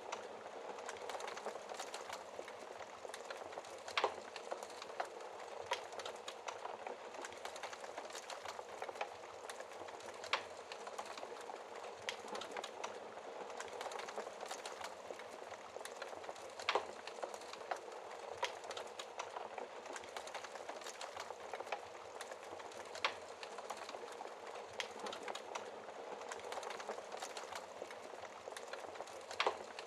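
Wood fire crackling steadily in a fireplace, with a sharper pop about every six seconds.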